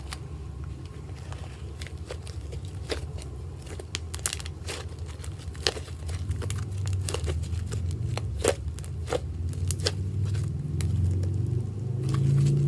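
Thick white slime being squeezed and stretched by hand, giving off an irregular run of sharp clicks and pops, denser from about two seconds in.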